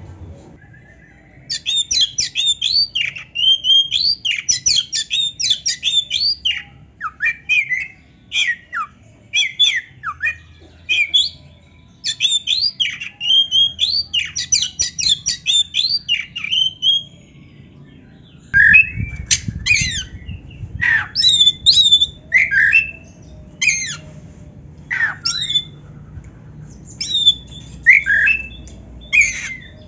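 Oriental magpie-robin singing: rapid phrases of varied whistles, slurred notes and harsh chattering, separated by short pauses.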